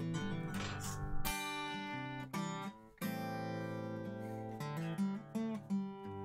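Guitar recording played back at its original 48,000 samples per second, full bandwidth and unresampled: picked notes and strummed chords, with a brief pause about three seconds in.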